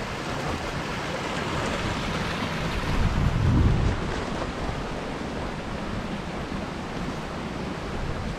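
Wind on the microphone: a steady rushing hiss, with a stronger low-rumbling gust that swells about three seconds in and dies down about a second later.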